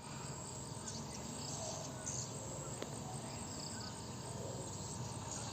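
Swiftlets chirping around a swiftlet house: many short, high twittering calls over a steady low hum.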